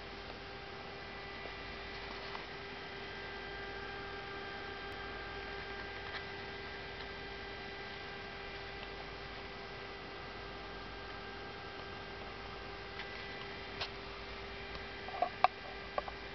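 Steady electrical hum with a thin whine of overtones, unchanging throughout. A few light clicks come near the end.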